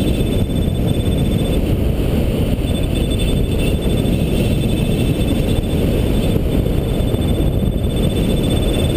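Wind rushing over the camera microphone on a hang glider in flight: a steady, loud low rumble of buffeting airflow.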